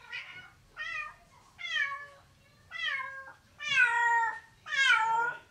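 Domestic cat meowing over and over: six meows about a second apart, the last two longer and louder.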